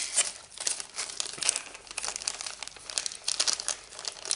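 Plastic packaging and bubble wrap crinkling in a run of irregular crackles as hands unwrap it.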